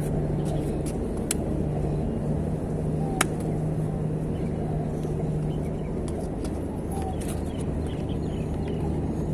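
A steady low mechanical hum, with a few sharp clicks, the loudest about three seconds in.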